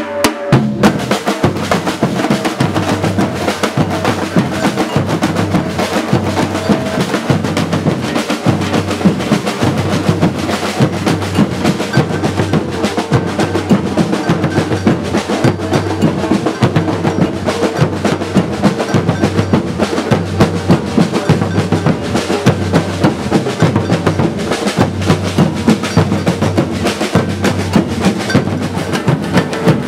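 Drums and other percussion playing a steady, repeating beat as live festival music.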